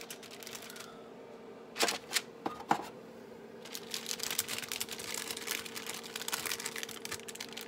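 Parchment paper crinkling and rustling under a hand as cookie dough is set out on a baking sheet, with three sharp taps about two seconds in and denser crackling from about four seconds on. A steady hum runs underneath.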